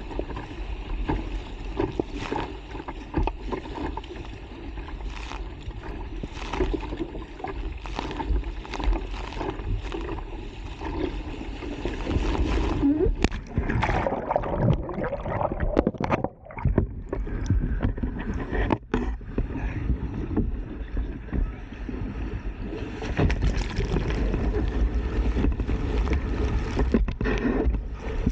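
Rough sea water surging and splashing around a kayak in a narrow rocky channel, with wind on the microphone. Around the middle the sound turns muffled for several seconds as foaming water washes over the deck-mounted camera.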